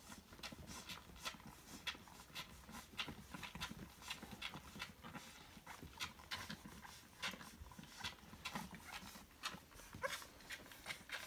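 Finnish Lapphund puppies suckling from their mother: irregular wet clicking and smacking, about three or four clicks a second. A short squeak from one puppy about ten seconds in.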